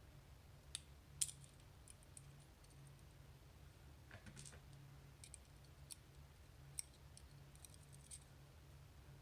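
Faint, scattered small metal clicks and taps of lock parts being handled as the drivers and springs are taken out of the Assa 600 cylinder housing; the sharpest click comes about a second in. A steady low hum runs underneath.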